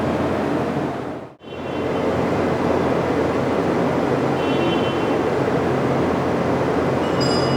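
Steady industrial machinery noise: a constant rushing noise over a low hum, with faint high tones coming and going. It cuts out briefly about a second and a half in, then resumes.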